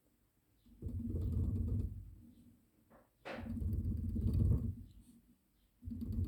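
Land Cruiser Prado 150 steering column bearing knocking in its seat as the shaft is rocked by hand. It comes in three bursts of quick rattling knocks, each about a second long. The bearing has play in its worn seat, and this is the knock that comes through to the steering wheel.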